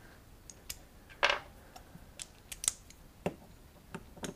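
Irregular light metallic clicks and clinks of hand tools and small carburetor parts being handled, with one sharper click a little over a second in.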